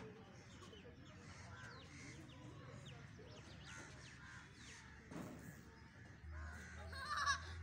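Faint bird calls, crows cawing among them, over quiet outdoor ambience. A high child's voice starts near the end.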